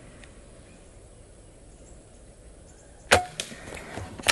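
Gamo Arrow .22 unregulated PCP air rifle firing a single shot about three seconds in, after a quiet stretch; the shot comes late in the air fill, when the velocity is dropping off. A second sharp click follows at the very end.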